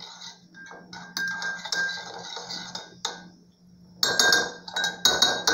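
A spoon scraping and clinking against a bowl as flocão (flaked cornmeal) moistened with water is mixed. The bowl rings faintly, and a run of quicker, louder clinks follows a short lull about four seconds in.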